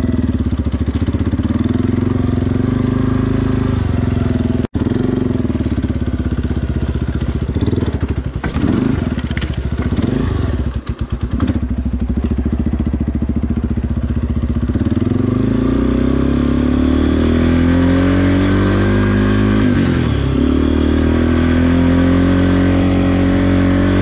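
Yamaha sport quad's engine running under a rider on a dirt trail. The throttle comes on and off unevenly in the middle, with a few short let-offs, then the engine pulls steadily, dipping in pitch once briefly before picking up again.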